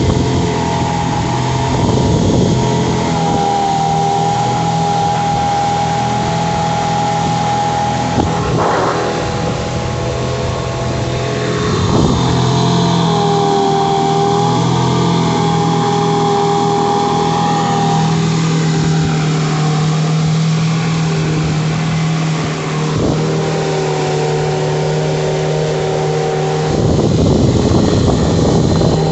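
Mariner 15 hp outboard motor running steadily under way, its pitch wavering slightly, over the constant rush of water from the wake.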